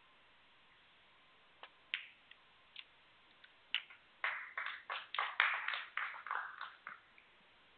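Snooker balls clicking: the cue tip strikes the cue ball, which knocks the black into a pocket. About four seconds in comes a quick run of a dozen or so sharp clacks lasting about three seconds.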